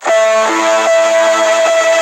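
Music: a distorted electric guitar cuts in abruptly and plays held notes that change every half second or so.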